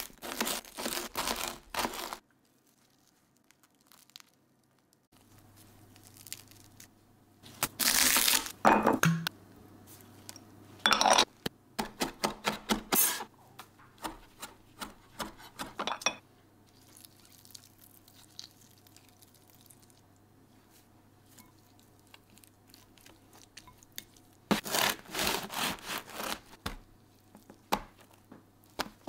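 A large serrated knife sawing through the crisp crust of a toasted, cheese-topped baguette on a wooden board. Later comes a run of quick knife strokes chopping fresh parsley on the board, and further bursts of crunching and scraping.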